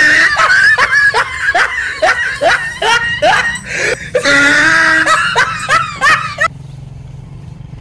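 A person laughing hard in quick high-pitched bursts, about four a second, each rising in pitch, breaking off about six and a half seconds in.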